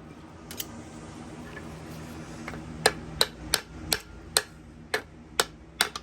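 Sharp metal-on-metal taps, about two to three a second, starting about three seconds in, as parts are worked loose on a stripped 350 small-block Chevy's bottom end while its connecting-rod caps are being removed.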